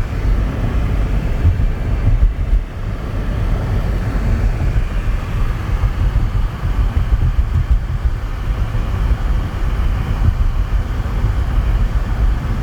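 Continuous low rumble, unsteady and buffeting, with a fainter hiss above it.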